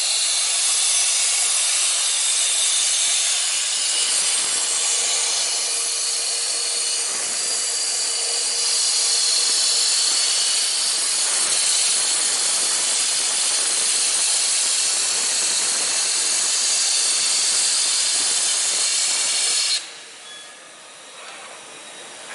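Hypertherm HPR400XD plasma arc cutting steel plate, a loud, steady hiss. It cuts off suddenly about twenty seconds in as the arc shuts off at the end of the cut.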